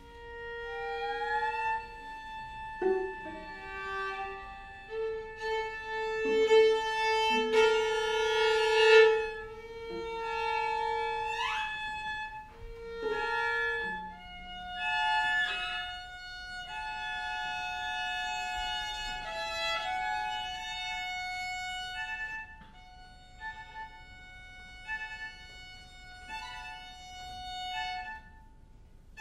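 A string quartet of two violins, viola and cello playing held, high bowed notes, with a quick upward slide about halfway in. In the later part the notes come as short, evenly spaced repeated strokes.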